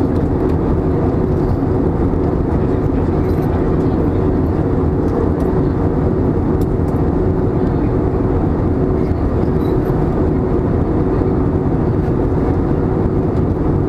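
Steady cabin noise inside an Airbus A320 in flight on its descent for landing: an even rush of engine and airflow noise with a steady hum running through it.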